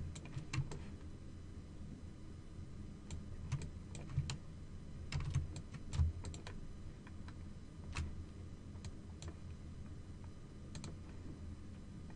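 Scattered, irregular clicks and taps of a computer keyboard and mouse, over a faint steady low hum.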